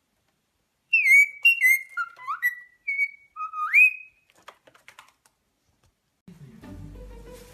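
A parrot whistling a short phrase of about eight clear notes, several dipping or sliding down in pitch and the last sweeping sharply upward, then stopping. Quiet music comes in near the end.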